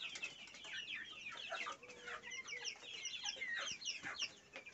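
A flock of hens clucking as they feed, many short high calls overlapping, most of them falling in pitch.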